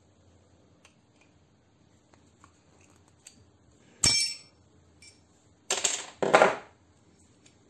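Small metal parts clinking: one sharp ringing clink about four seconds in, then two short metallic clatters in quick succession about two seconds later.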